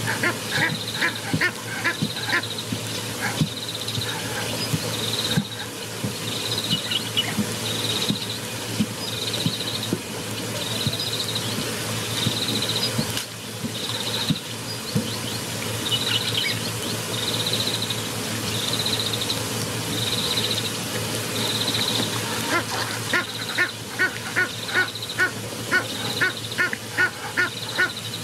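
Wild animal calls: a short high call repeats about once a second throughout, with runs of rapid calls, about three a second, near the start and again near the end, over a steady low hum.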